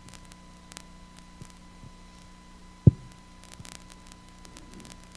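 Steady electrical hum from the sound system, with scattered faint clicks and one sharp, loud low thump about three seconds in.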